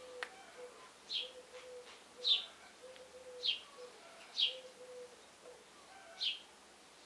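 Small birds chirping: short, high, downward chirps about once a second. There is one sharp click near the start.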